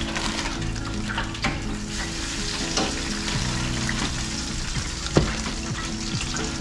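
Okra frying in hot oil: a steady sizzle with dense crackling and popping, and one sharp knock about five seconds in, over background music with held low notes.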